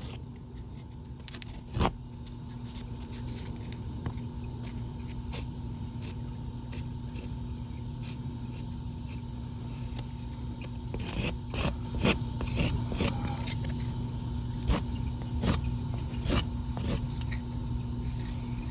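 Hand work on a wooden window muntin: fingers pressing and smoothing moldable glue putty into the break, heard as scattered light rubs and clicks that grow busier about halfway through, over a steady low hum.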